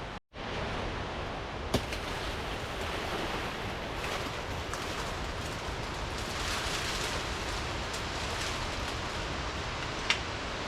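Steady rushing water of a waterfall and stream, with a sharp knock twice.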